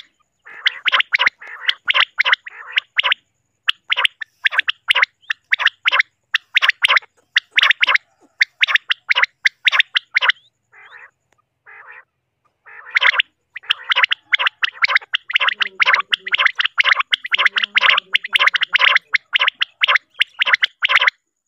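Common quail calling in fast, dense runs of short rattling notes, with a short break and then a longer lull near the middle before the calling picks up again. The calls are set out as a lure for quail hunting.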